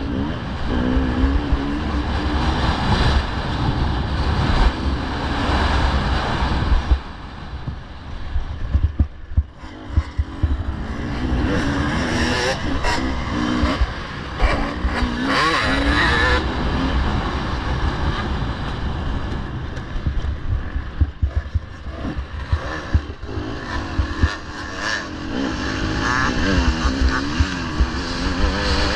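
Off-road dirt bike engines running hard in a race, their pitch rising and falling as riders rev through the course. The engines drop off for a few seconds about a quarter of the way in, then build back up.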